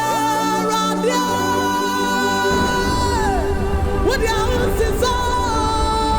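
Gospel worship music with singing: long held high notes over sustained chords, the low end filling out about two and a half seconds in.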